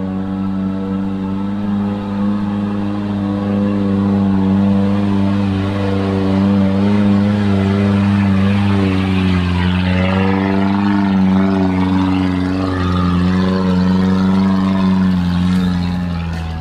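Off-road 4x4's engine running under load as it climbs a muddy dirt track, a steady drone whose pitch wavers for a few seconds in the middle. It fades near the end as the vehicle pulls away.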